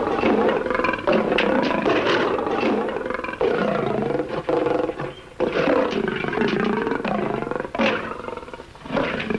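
Lion roaring over and over, several long roars with short breaks between them.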